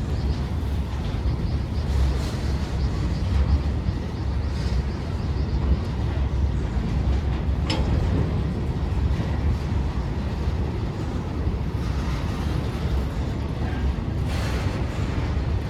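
A train running past at a railway station: a steady low rumble throughout, with one sharp click about halfway through.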